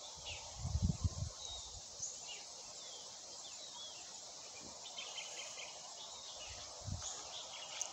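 Hillside forest ambience: a steady high hiss of insects with scattered short bird chirps, and a low rumble about a second in and again near the end.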